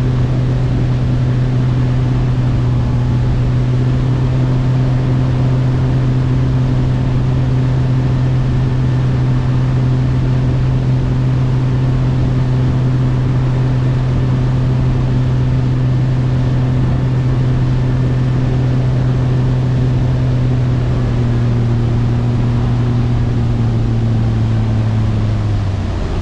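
Bass boat's outboard motor running steadily under way, with a steady rush of wind and water. The engine note drops slightly about three-quarters through and again just before the end.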